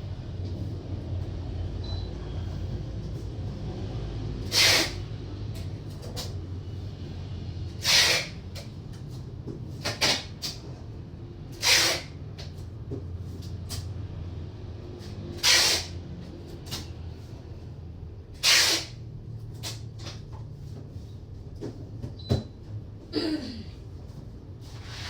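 A sleeping person snoring: a loud, noisy breath about every three to four seconds over a steady low hum.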